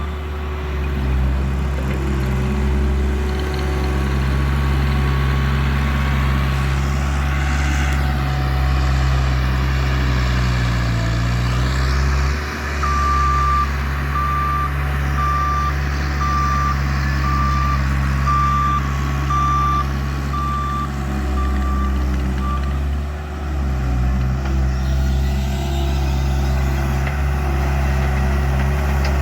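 Bobcat loader's engine running under work, its speed dipping and recovering briefly about eleven seconds in and again near twenty-three seconds. Its reversing alarm beeps about once a second for roughly ten seconds in the middle.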